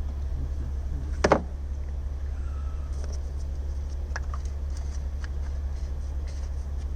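A single sharp knock about a second in, over a steady low hum, with a couple of faint ticks a few seconds later.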